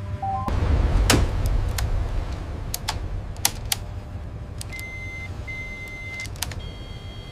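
Low steady machinery rumble with scattered sharp clicks. Past the middle come two long, steady electronic beeps, followed by a fainter higher tone.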